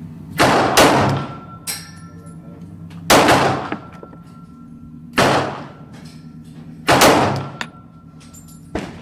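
Glock 19 Gen 4 9mm pistol firing a slow string of about five shots, roughly one to two seconds apart, the first two close together. Each shot is followed by a short ringing echo, with small clicks between shots.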